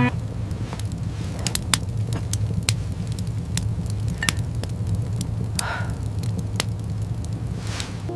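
Fire crackling: scattered sharp pops over a steady low rumble.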